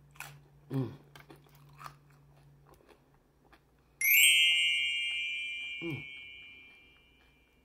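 Soft chewing and crunching of a hard-shell beef taco and tortilla chips, then about four seconds in a loud, bright chime sound effect rings out and fades away over about three seconds.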